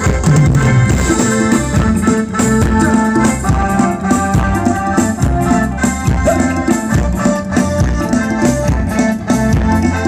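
Live band playing Thai ramwong dance music in an instrumental stretch without singing: keyboard over a steady drum-kit beat.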